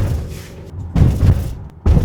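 Inside the cabin of a Jeep Grand Cherokee driving over bumps: heavy low thumps from the tyres and suspension, one at the start, one about a second in and one near the end. This is the after-repair recording: the rattle from the seat-adjust cable and the 3D floor mat is almost gone.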